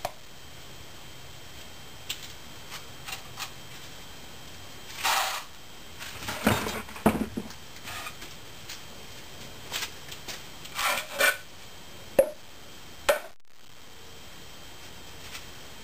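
Scattered light taps, knocks and scrapes of hand work on a greensand casting mold: a mallet rapping, and a bell pattern being handled to free a broken-off piece of rammed sand stuck in it. Two sharp knocks near the end are the loudest.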